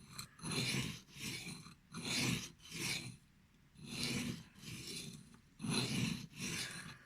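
Manly Wasp knife's 12C27 steel blade drawn in repeated strokes across a new, oiled Arkansas whetstone: about eight rasping strokes a little under a second apart, with a brief pause midway. The scraping sounds different to the sharpener, who puts it down to the new stone still being a bit rough.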